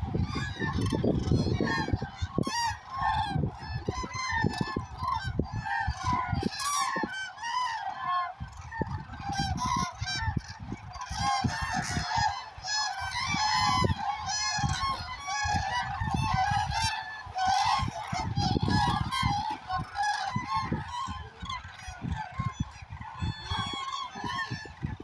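A large flock of common cranes calling, with many trumpeting calls overlapping in an unbroken chorus.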